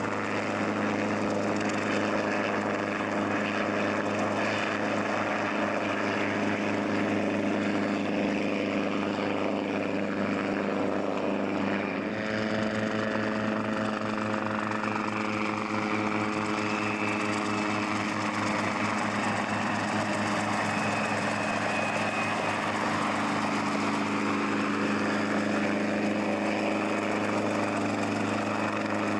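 Hughes 269/300-series light helicopter in flight and on approach to land: its four-cylinder piston engine drones steadily under the beat of the main rotor. About halfway through the rotor beat grows stronger and more engine tones come in as the helicopter closes in.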